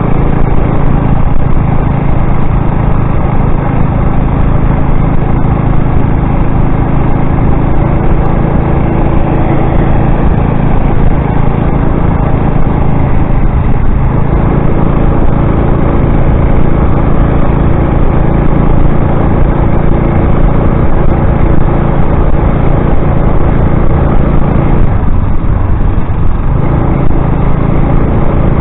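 Motorized bicycle's small gasoline engine running steadily under way, easing off briefly about halfway through and again near the end, with wind rush on the microphone.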